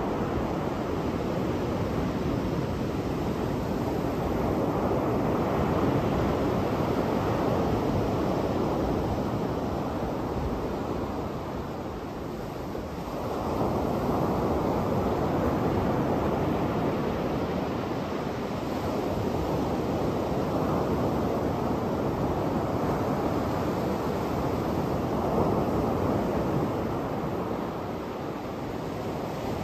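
Surf breaking and washing up a sandy beach, a continuous rushing wash that swells and eases, with a brief lull about halfway through.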